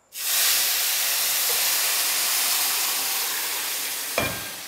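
Hot sugar syrup poured into semolina roasting in ghee, hitting the hot pan with a loud steam hiss that starts suddenly and slowly fades. A short clink about four seconds in.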